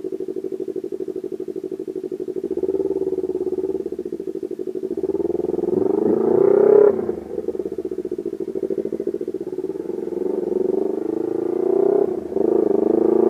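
Motorcycle engine heard from the rider's seat, running at low revs in slow traffic, then rising in pitch as it accelerates from about five seconds in. The pitch cuts back sharply near seven seconds and again near twelve seconds before it climbs once more.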